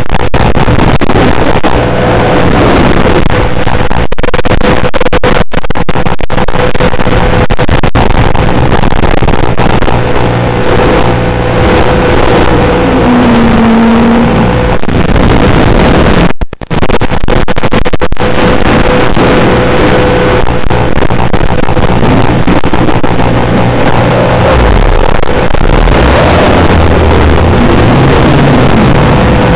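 FPV quadcopter's motors, loud and distorted over heavy hiss, their pitch sliding up and down with throttle. The sound drops out briefly about 16 seconds in.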